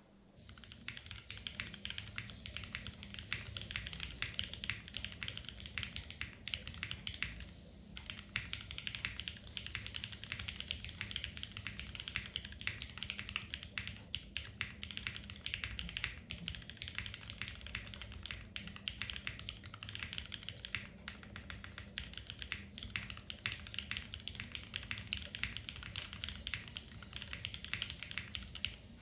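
Fast, continuous typing on an Anorexus Void65 mechanical keyboard in O-ring mount, with Cherry MX2A Black linear switches and GMK Jamon keycaps. Dense keystrokes begin just after the start, with a brief pause a little before eight seconds in.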